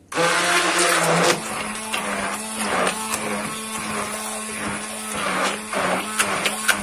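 Hand-held immersion blender switched on suddenly, its motor whirring steadily as it purées roasted aubergine with yogurt; the pitch steps up a little after about a second. Sharp knocks of the blender head against the glass bowl come through, most often near the end.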